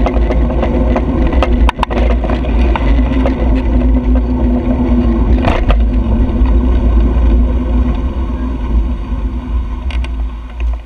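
Wind buffeting the microphone of a handlebar-mounted camera on a moving bicycle: a heavy, steady rumble with scattered clicks and rattles from the bike over the road. The noise eases over the last few seconds as the bike slows for a red light.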